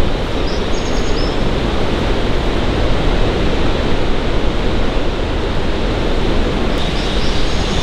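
Steady rush of a large jungle waterfall, a loud even noise with no break. A few faint high chirps come about half a second to a second in.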